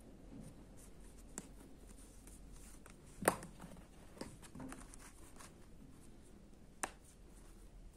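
Metal snap fastener on a crocheted yarn pouch clicking as it is popped open and pressed shut, with soft rustling of the yarn as the pouch is handled. The sharpest click comes a little past three seconds in, another near the end.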